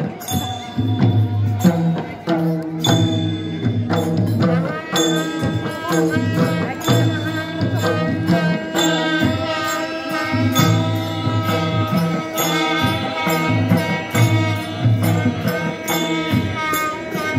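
Live traditional music accompanying a dance: a sustained pitched melody over a steady percussion beat.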